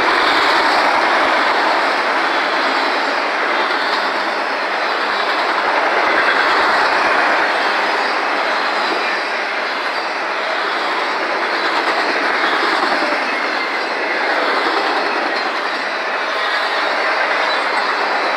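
Autorack freight cars rolling past on steel rails: a steady, loud rush of wheel-on-rail noise that swells and eases slightly as the cars go by, with a faint thin wheel squeal near the end.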